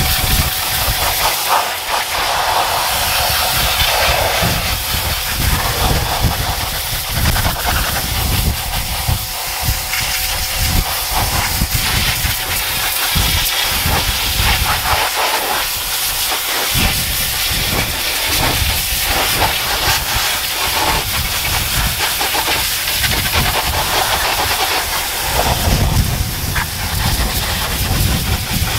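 Pressure washer jet blasting foamed degreaser off a dirty truck wheel and tyre: a loud, steady spray hiss.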